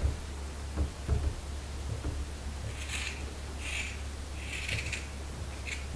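Small scissors snipping through a fabric sock: a few crisp cuts in the second half, over a low steady hum.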